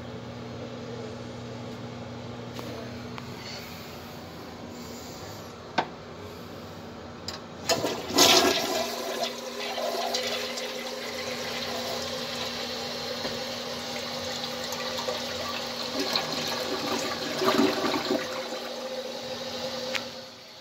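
A Briggs Conserver 3.5-gallon-per-flush toilet flushing. After a steady hum and a few clicks, the flush starts about eight seconds in with a sudden loud rush of water that runs on for about twelve seconds and drops away near the end.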